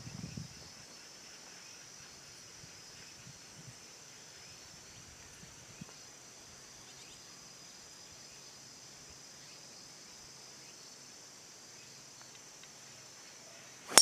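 A faint, steady, high-pitched insect chorus. Near the end comes one sharp crack as a driver strikes a golf ball off the tee.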